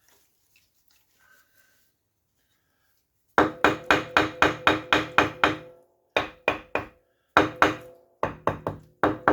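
A brick being tapped down into clay mortar to set it: a fast run of about ten sharp, ringing knocks, then short groups of three or four knocks.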